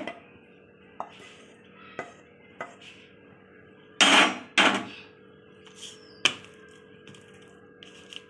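Kitchen handling sounds of a wooden spatula and pan against a ceramic plate: a sharp knock at the start, a few light taps, and two louder, rough scraping bursts about four seconds in. A faint steady hum runs underneath.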